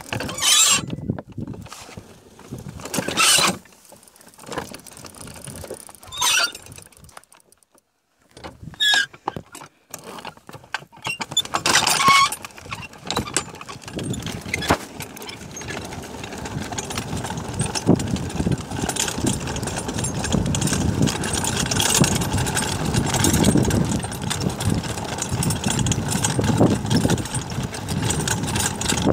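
Pedal kart with air-filled tyres rolling over a rutted dirt track, its wheels and frame rattling. The first half brings separate short squeaks and knocks; from about halfway the rattling rumble becomes continuous and grows louder.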